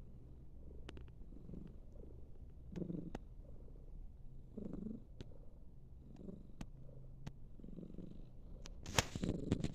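A sleeping pet snoring: a low rattling rumble that swells with each breath, about every one and a half to two seconds. A brief, louder noise comes near the end.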